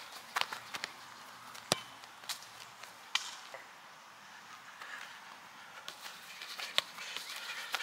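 Soccer ball being touched and kicked on grass: a scatter of sharp knocks, the loudest about a second and a half in, with footsteps on the grass between them.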